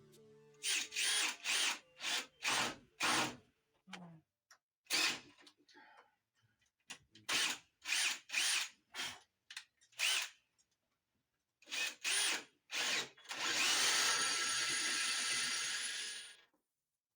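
Power drill run in a string of short trigger bursts, its motor whining up and back down each time, then held for one longer steady run of about three seconds near the end.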